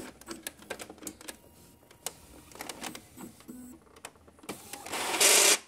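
Epson L395 inkjet printer running its power-on self-test: clicks and a motor working, then, near the end, a loud harsh burst under a second long that stops abruptly. This is the slipping noise the printer makes at start-up, which the owner puts down to the carriage belt drive failing to grip and slipping.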